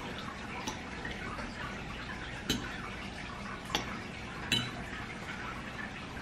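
Four light clicks of cutlery against a plate during a meal, spaced irregularly over a steady low background hiss.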